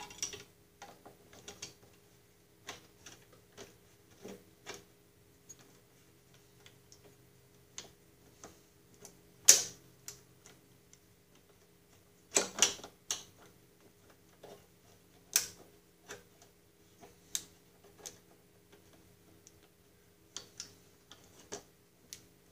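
Irregular metal clicks and clinks of pliers and a wrench on the shift lever shaft, spring and spring compressor of a Snapper riding mower, as the compressor is worked back onto the shaft. One sharper clack comes a little before halfway, and a quick run of clacks follows soon after, all over a faint steady hum.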